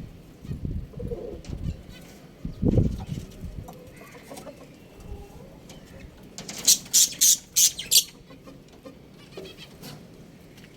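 Birds calling: a few low, short calls in the first few seconds, then a quick run of five sharp, high-pitched calls about seven seconds in.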